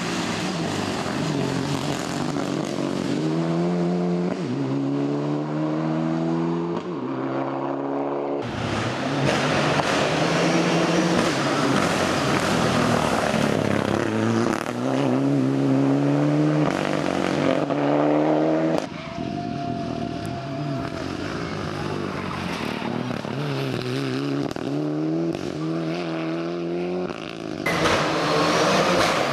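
Mitsubishi Lancer Evo IX rally car's turbocharged four-cylinder engine accelerating hard, its revs climbing and dropping back again and again as it shifts up through the gears. Several passes follow one another with sudden cuts between them.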